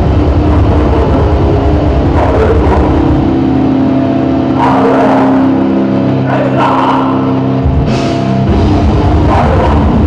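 Loud live heavy metal: a band's distorted guitar and bass over dense drumming, with vocals coming in several times. The kick drum drops out for a few seconds in the middle, then the full band comes back in.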